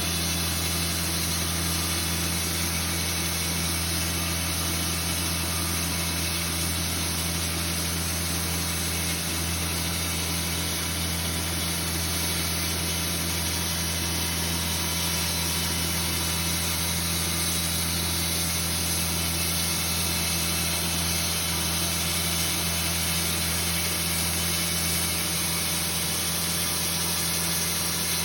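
Sawmill machinery running with a steady, unchanging engine drone while poplar is being milled.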